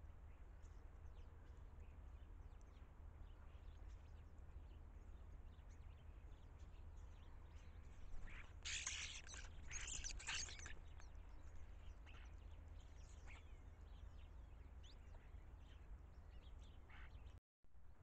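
Faint, scattered chirps of European starlings at a bird feeder over a steady low wind rumble, with a louder, noisy burst of bird sound lasting about two seconds a little before halfway through as more starlings arrive.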